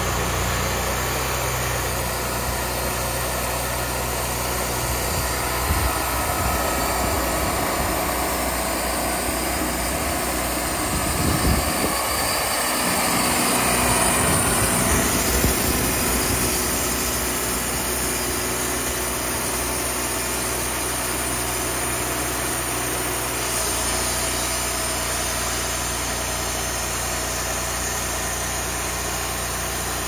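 Wood-Mizer LT40 Wide band sawmill running steadily, its engine driving the band blade as it saws boards off a cant. The sound swells a little about halfway through, then settles back.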